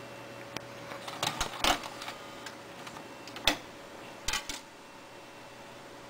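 Slot-loading Panasonic UJ-845 DVD drive's mechanism clicking and clattering in short bursts: a cluster a little over a second in, one sharp click about halfway, and another cluster past four seconds, after which the faint background hum grows quieter.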